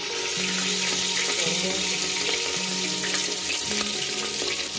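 Chopped shallots frying in hot oil with mustard seeds in an earthenware pot, a steady sizzle.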